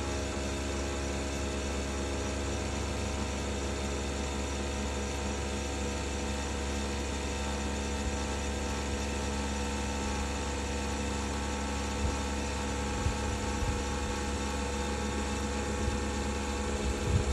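Bosch BOVB-36HDN1-M20G heat pump running with a steady grinding noise over its hum, with a few brief louder knocks in the last few seconds. The grinding is new on a unit less than a year old, and the owner fears it is a developing fault.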